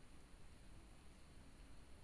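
Near silence: faint room tone with a steady hiss.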